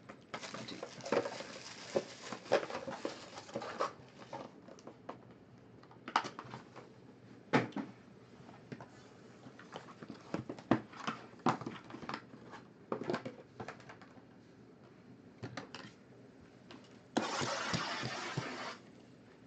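Hands handling a trading-card box and its foil-wrapped packs: scattered taps, knocks and rustling of cardboard and wrappers, with a louder rush of noise lasting about a second and a half near the end.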